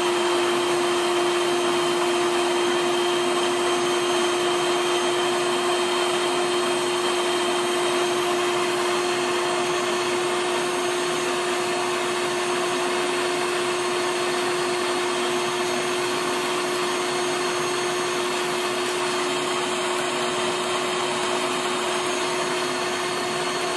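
Electric hand mixer running at a steady speed, its beaters whisking eggs in a stainless steel bowl until foamy: a constant motor whine with one strong hum.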